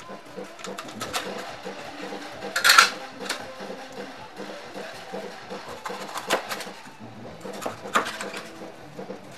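Meat cleaver chopping through a whole fish onto a plastic cutting board: several sharp chops spaced a second or more apart, the loudest about three seconds in.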